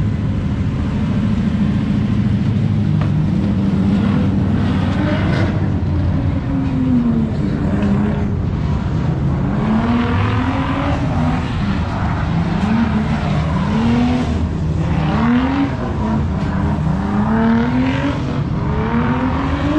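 Drift car engines running: a steady idle at first, then from about six seconds in, repeated revving with the engine pitch rising and falling roughly once a second.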